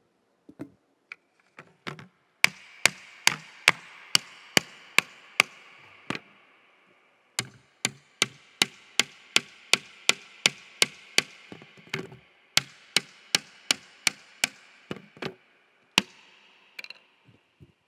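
Hammer driving nails into wood: steady, ringing blows about two or three a second, in three runs with short pauses between them, as one wooden cross is nailed to another.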